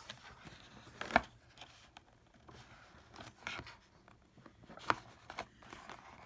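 Small garden hand tools and their plastic packaging being handled as they are freed from zip ties: scattered rustles and small clicks, with two sharper clicks about a second in and near five seconds.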